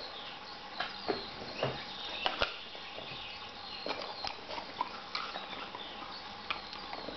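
A dog's claws clicking and tapping on a wooden floor as it walks about, in irregular scattered taps.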